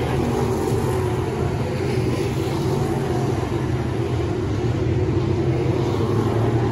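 A pack of 602 crate dirt late model race cars lapping a dirt oval, their V8 engines running together in a steady, loud mix of engine noise.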